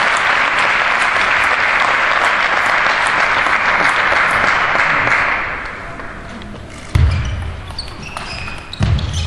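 Audience applauding in a large hall for about five seconds, then dying away. In the quieter stretch after it come a few light clicks of a table tennis ball and two sudden low thumps, one about seven seconds in and one near the end.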